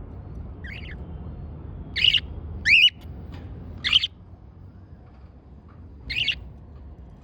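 Cockatiel giving about five short, shrill calls a second or two apart; one near the middle is a two-part call that slides down in pitch.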